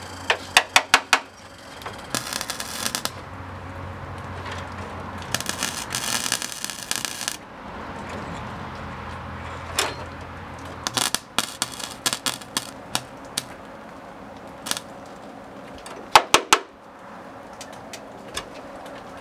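MIG welder tacking and stitch-welding steel sheet-metal patches: several separate runs of arc crackle, each a second or two long, with pauses between. The welder is acting up as its roll of wire runs low.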